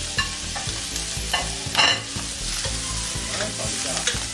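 Squid tentacle pieces sizzling in hot oil in a wok as a spatula stir-fries them. The spatula scrapes and knocks against the wok several times, loudest a little under two seconds in.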